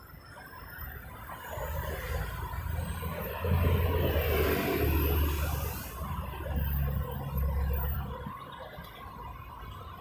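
City road traffic, with a motor vehicle passing close by. Its low engine rumble and tyre noise build over the first few seconds, are loudest around the middle, then fade toward the end.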